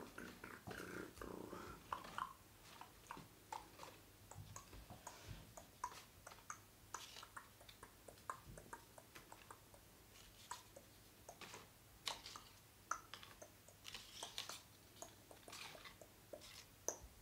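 Paper and small craft items being handled and packed into boxes on a table: scattered light rustles and clicks, with a few soft knocks.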